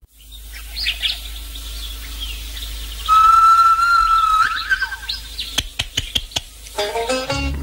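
Bush birds calling: scattered high chirps, then a loud, long, steady whistled note that ends in a few quick upward flicks, followed by sharp clicks.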